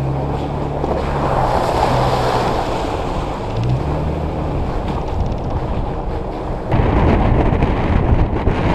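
Off-road vehicle's engine running and revving, heard through a hood-mounted camera with heavy wind and driving noise on the microphone. About seven seconds in, the sound cuts abruptly to a louder, rougher run.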